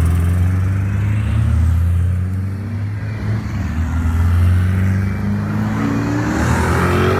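Car engines running as cars drive past at low speed, one engine's note climbing in pitch over the last couple of seconds as it accelerates.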